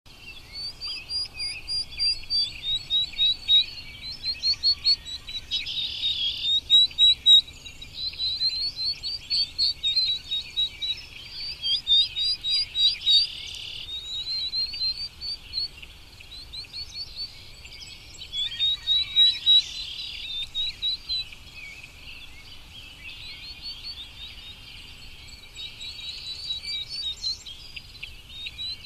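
Bird chirping: runs of short, rapid, high chirps, several notes a second, repeated with brief pauses between runs.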